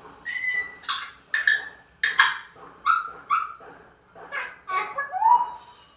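African grey parrot vocalizing: a run of about ten short calls and squawks, some with whistled, sliding tones.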